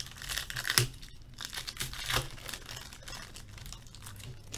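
Foil wrapper of an O-Pee-Chee Platinum hockey card pack being torn open and crinkled by hand, crackling loudest in the first half and rustling more lightly after.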